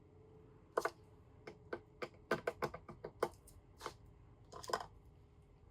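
Light, irregular clicking and tapping: about a dozen sharp clicks spread over four seconds, the loudest about a second in.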